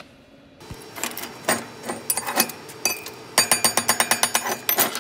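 Slag being knocked off a 7018 stick-weld bead on steel plate with a chipping hammer: scattered metal knocks, then a quick run of about a dozen ringing taps, roughly nine a second, in the second half.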